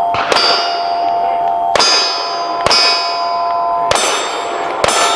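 Five pistol shots at steel target plates about a second apart. Each hit sets a plate ringing with a clear metallic tone that carries on until the next shot.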